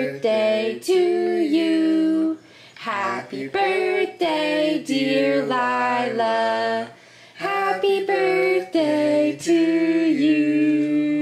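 Background song: a woman singing a melody in long held notes.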